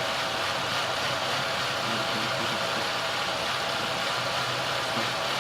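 Car engine idling steadily under the hood of a 1997 Chevy Malibu being diagnosed for an intermittent rough idle.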